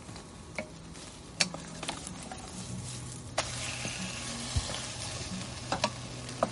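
Food sizzling in a pan, with a few sharp clinks of utensils. The sizzle gets louder about three and a half seconds in.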